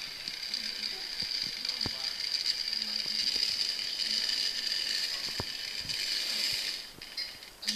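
Märklin model train running on metal track: a steady, high-pitched whirr from the locomotive's motor and gears, with a few faint clicks. The running sound drops off about seven seconds in.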